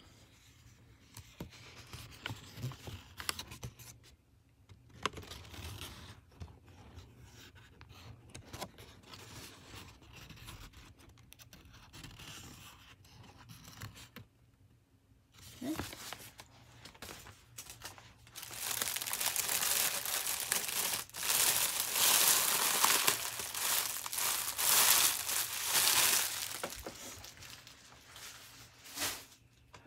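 Paper and packaging being handled and crinkled: faint rustling for the first half, then loud continuous crinkling for about eight seconds.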